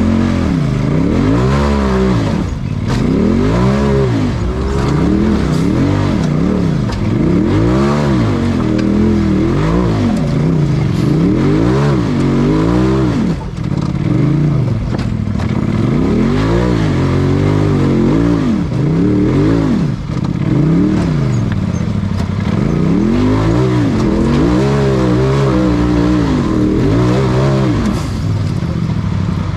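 UTV race car's engine, heard from inside the cab, revving up and dropping back over and over in short surges, roughly every second or two, as the driver blips the throttle to pick the car over rocks.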